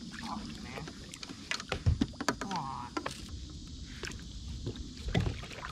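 Scattered sharp knocks and clicks of gear being handled in a small fishing boat, over a low steady rumble of water and wind, with a few brief snatches of voice.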